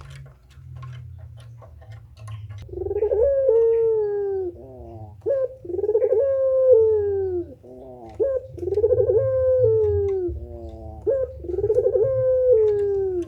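Puter pelung dove cooing steadily: four long, drawn-out coos about every three seconds, each sliding slightly down and ending in a short stepped falling trill. A few small clicks come before the first coo, over a low hum.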